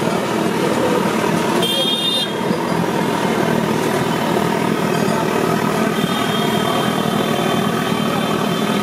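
Steady roaring street traffic noise, with a short vehicle horn toot about two seconds in.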